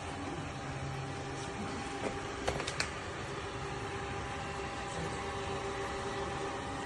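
MONSGA robot vacuum running with a steady motor hum and a faint whine, and a few sharp clicks between about two and three seconds in.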